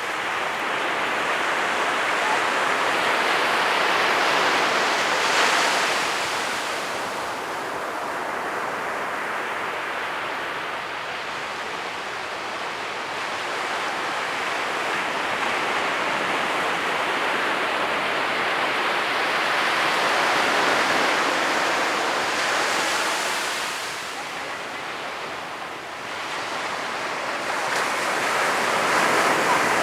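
Ocean surf breaking on a beach: a continuous rushing wash that swells and eases as successive waves break, loudest about five seconds in, again past the middle and near the end.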